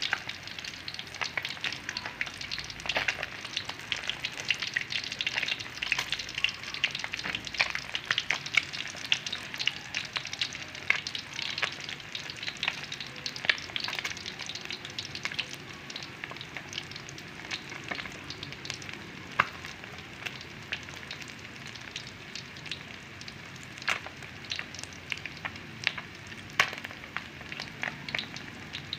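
Whole yellowtail scad frying in shallow oil in a metal wok: a steady sizzle with many sharp spattering pops, which thin out in the second half. This is the last stretch of frying before the fish are done.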